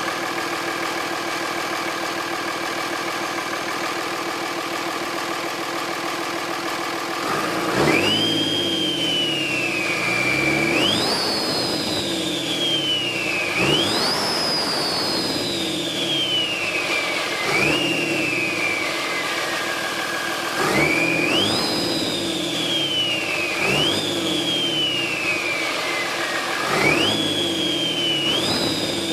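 Cummins turbo-diesel engine idling, then blipped about eight times, heard right at the air intake. With each rev the turbocharger whistle shoots up sharply to a high pitch and then falls away slowly as the turbo spools down.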